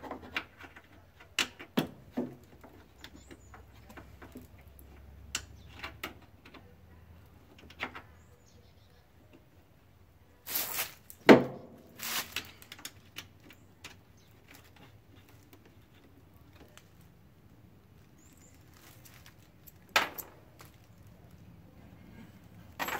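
Scattered small clicks, taps and scrapes of half-inch nuts and washers being worked by hand onto a snorkel's mounting studs from behind a vehicle fender, a fiddly, hard-to-reach job. A few louder rustling knocks come in between, the loudest about eleven seconds in and another about twenty seconds in.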